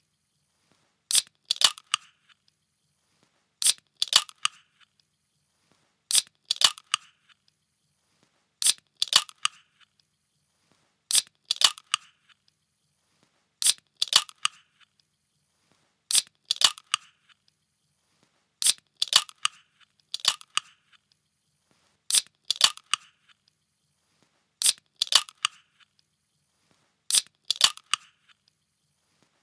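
A pull-tab drink can being opened again and again, each time a sharp crack followed a fraction of a second later by a second crack and a short hiss, repeating about every two and a half seconds.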